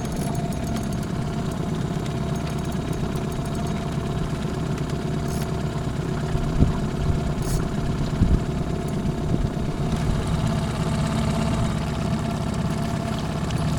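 Boat motor running steadily at low speed, a low, even hum. A couple of light knocks come about six and eight seconds in.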